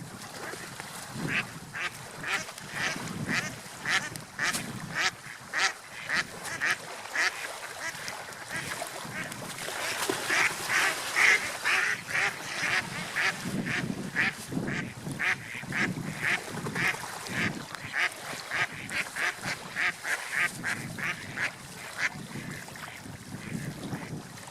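Ducks quacking in a long run of short calls, about two or three a second, loudest around the middle, over a low background rumble.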